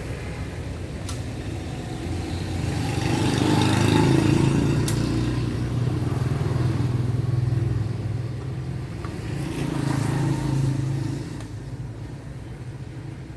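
Bosch three-mode rotary hammer drill's electric motor running on test after repair, getting louder about two seconds in and dropping back about eleven seconds in, with two sharp clicks.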